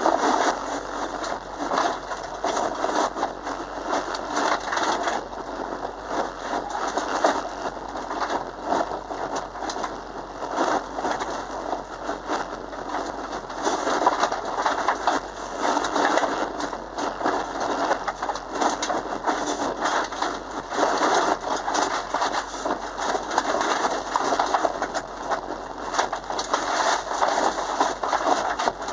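Dense crackling of stones and mud thrown up against the underside and wheel arches of a Subaru Impreza at speed, heard from inside the cabin, with the engine running under it.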